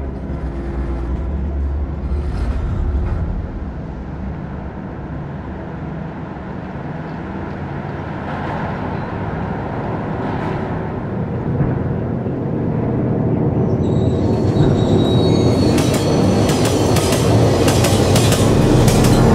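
Film sound design of an industrial city: a dense mechanical rumble with metallic grinding and squealing over a low drone. Rapid metallic clanking builds up over the last five seconds as it grows louder, then cuts off abruptly.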